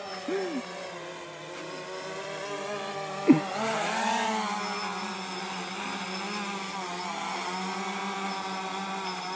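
DJI Phantom 3 quadcopter's four propellers making a steady multi-tone whine. The whine grows louder and wavers in pitch about four seconds in as the drone passes closer, and a short sharp sound cuts in just before.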